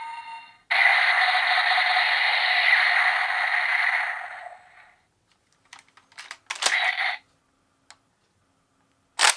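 Electronic sound effect from a Kyoryuger toy weapon's small speaker: a loud noisy blast lasting about four seconds and fading out. Then a cluster of plastic clicks from the toy's mechanism, and a single sharp click near the end.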